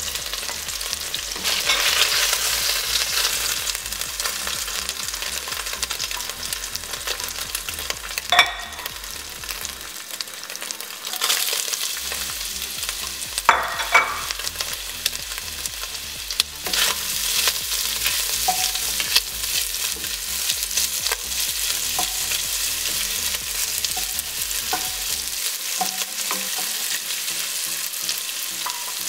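Hot cooking oil sizzling steadily in an enamelled pot as browned chicken pieces are lifted out and julienned ginger goes in. A wooden spoon knocks sharply against the pot a few times.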